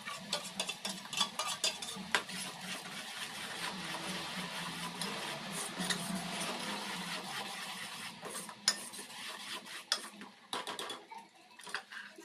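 A steel ladle stirring thick gravy in a pot, with irregular clinks and scrapes of metal against the pot's rim and sides, thinning out near the end.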